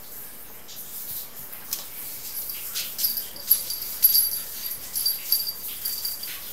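Small bell on a cat toy mouse jingling in short repeated tinkles as a kitten bats and pounces on it, starting about two seconds in, with light taps and scuffs on the floor.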